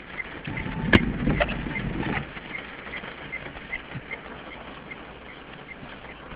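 Light rain pattering on a car windscreen, heard from inside the car, with a windscreen wiper sweeping across once: a sharp click about a second in, then a second of louder rubbing and thudding. A faint regular ticking about twice a second goes on underneath.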